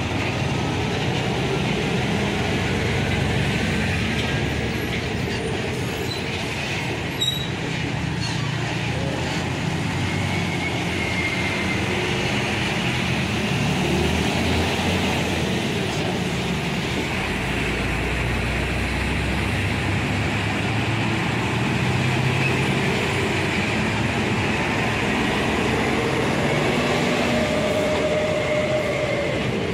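Heavy diesel trucks passing close by on a highway, a steady mix of engine rumble and tyre noise that swells as each one goes past. A single sharp click about seven seconds in.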